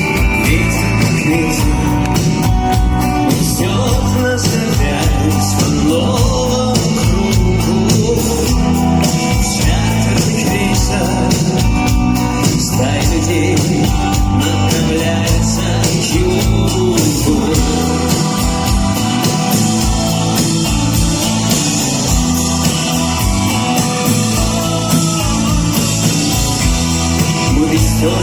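Rock band playing live with electric guitars, bass and drums, a voice singing over them.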